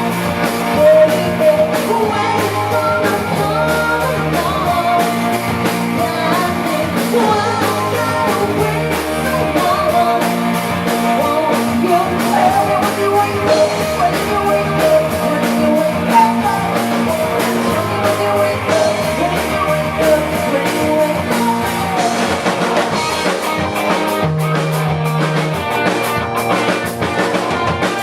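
Live rock band playing a song: electric guitars, bass and drums, with singing.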